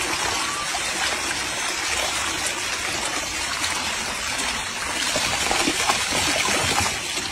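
Small stream of water trickling steadily over rocks and earth.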